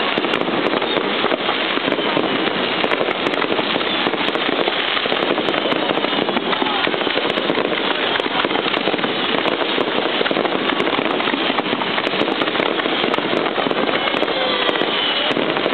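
Large aerial fireworks display: a dense, continuous barrage of bangs and crackling shells with no break.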